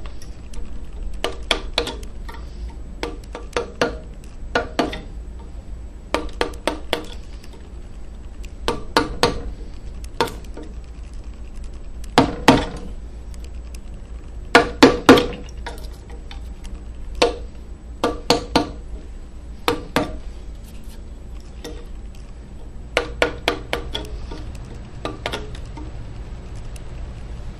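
Mallet striking a carving chisel driven into walnut: sharp knocks in quick groups of two to four, with short pauses between the groups.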